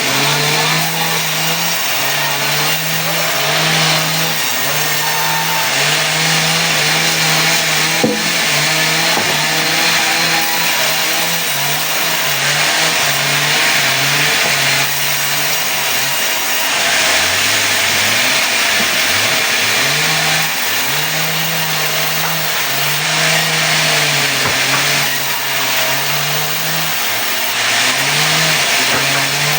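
Sawmill saw running and cutting mahogany into boards. There is a steady mechanical drone under a dense cutting hiss. About 17 seconds in, the drone's pitch drops sharply and then climbs back, as the drive slows under the cut and recovers.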